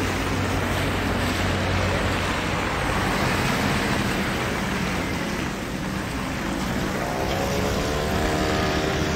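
Steady hiss of rain and car tyres on a wet street. A faint pitched engine note rises slowly near the end.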